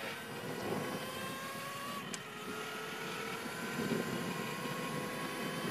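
Electric bicycle's small chain-reduction motor whining under power, its pitch slowly rising, over wind and tyre noise. A short tick sounds about two seconds in.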